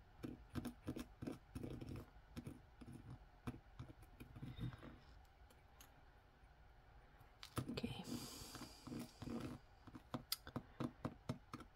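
Steel tip of a wooden-handled awl picking at a knot in a fine metal chain on a hard tabletop: irregular small clicks and light scratches, with a brief scraping sound a little past the middle.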